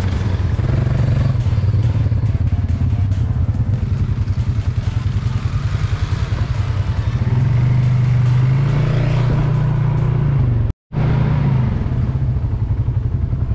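A small off-road vehicle engine running hard, a loud drone with a fast, even pulsing beat. The sound cuts out for an instant shortly before the end, then the engine carries on.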